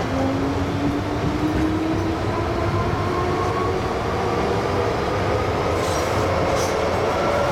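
MTR Island Line metro train pulling out and gathering speed, heard inside the car: a steady rumble of wheels on track, and the traction motors whining in thin tones that climb slowly in pitch as the train accelerates.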